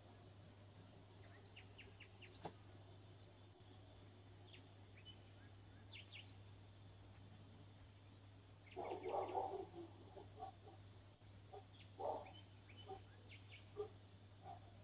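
Faint short animal chirps, then a louder cluster of quick clucking sounds about nine seconds in, with smaller ones around twelve and fourteen seconds, over a steady low hum.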